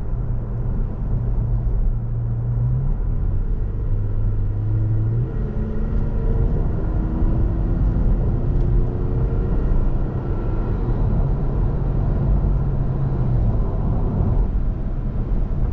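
Inside the cab of a 2017 Toyota Tacoma TRD Off-Road on the move: a steady low road rumble under the 3.5L V6 engine, whose note rises in pitch several times in the middle of the stretch.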